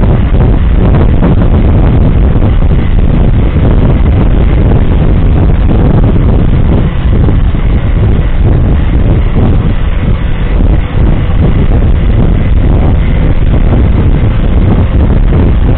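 Vehicle on the move, heard from inside the cab: a loud, steady low rumble of engine and road noise with buffeting on the microphone.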